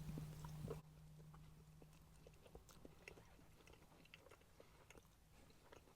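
Faint chewing: a man eating a soft burger, with small wet mouth clicks and smacks. A low background hum cuts out about a second in.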